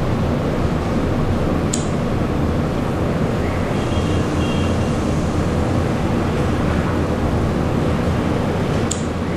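Steady, even background noise with two short, sharp clicks: one about two seconds in and one near the end.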